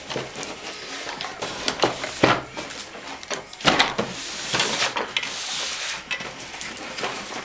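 Parcel packaging being handled and unwrapped: crinkling and rustling with irregular knocks and clicks, and a longer rustle about halfway through.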